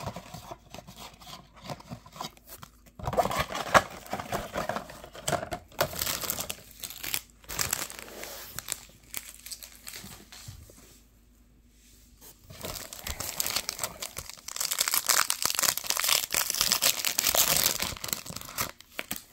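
Clear plastic wrapper of a trading-card pack being crinkled and torn open by hand. Several bursts of crinkling come in the first half, then a pause, then a longer stretch of crinkling and tearing near the end.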